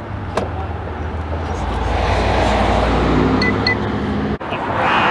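A car driving past on the road. Its engine and tyre noise swells to a peak about two to three seconds in, then cuts off abruptly shortly before the end.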